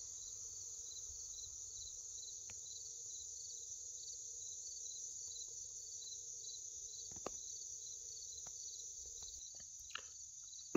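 Faint insect chorus from a field at dawn: a steady high-pitched trill with a second insect pulsing about twice a second beneath it. There are a couple of soft clicks near the middle and end.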